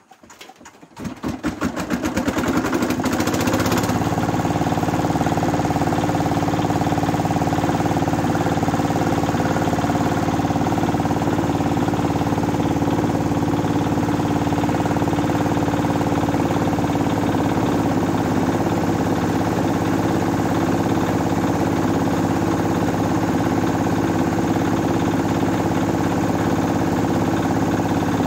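Old 8 hp diesel engine of a rice mill being started: rapid beats pick up over the first couple of seconds as it catches, then it settles at about four seconds into loud, steady running.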